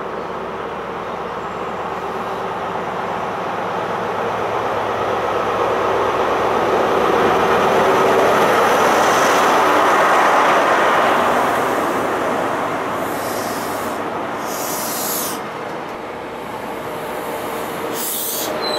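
GWR Class 43 HST power car with its MTU V16 diesel approaching and passing close. The diesel and the wheels grow louder to a peak about halfway through as the power car goes by, then ease as the coaches roll past, with a few short high hisses near the end.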